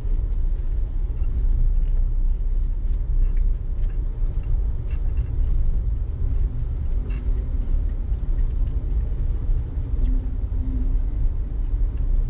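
Car interior noise while driving slowly: a steady low rumble of engine and tyres on paving, heard from inside the cabin.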